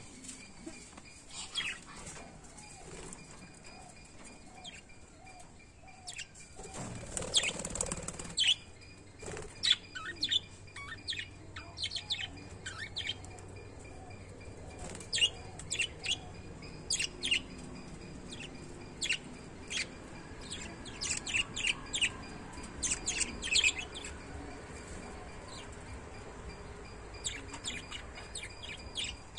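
A pair of small pet parrots chirping in short, high, scattered calls that come thicker in the second half, with a burst of wing flapping about seven seconds in.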